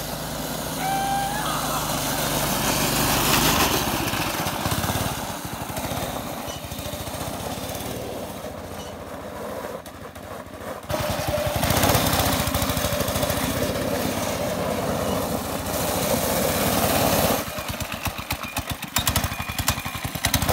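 Go-kart's small gas engine running hard as the kart drives on a gravel road, getting louder as it comes close, fading briefly near the middle and coming back up. Near the end the engine note turns uneven and choppy as the kart slows close by.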